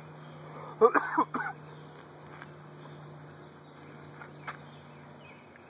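A brief burst of a man's voice about a second in, followed by a steady low hum and faint outdoor background with a few faint clicks.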